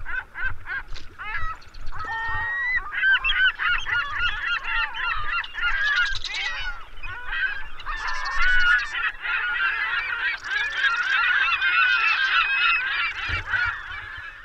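A flock of geese calling: many short honks overlapping in a continuous chorus, thinning a little near the end.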